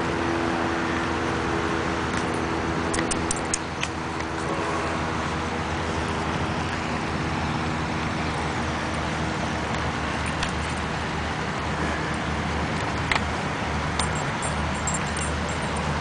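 Steady rushing outdoor background noise, with a low hum that fades out in the first few seconds and a few light clicks and high jingles in the second half.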